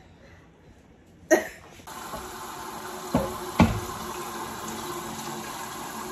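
A utensil clanking twice against a large stainless-steel stockpot of potatoes a little past three seconds in, over a steady rushing hiss that starts about two seconds in. A single sharp knock comes just over a second in.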